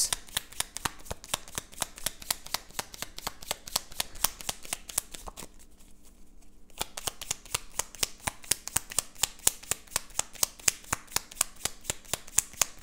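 Tarot cards being shuffled by hand: a quick, even run of card slaps, about six a second, that stops for a little over a second about halfway through and then resumes.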